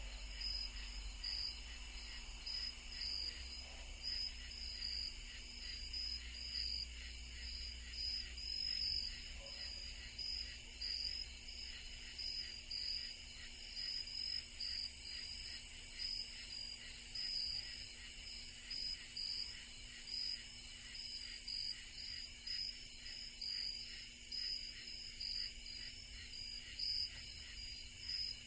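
Insects chirping in a steady pulsing rhythm, high-pitched, over a faint low hum. No music.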